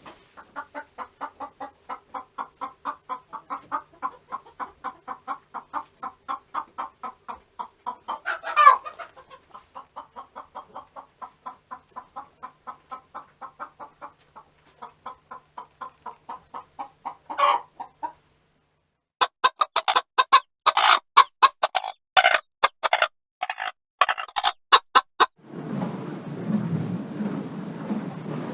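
Hen clucking in a steady run of about four clucks a second, broken twice by a loud sharp squawk. After a short break, a louder bout of clucking with the clucks further apart. Near the end a different, steady, noisy sound takes over.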